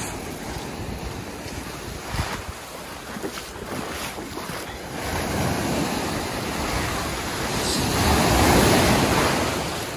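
Sea surf breaking and washing up the beach, swelling to its loudest about eight or nine seconds in and then easing, with wind buffeting the microphone and a few faint knocks early on.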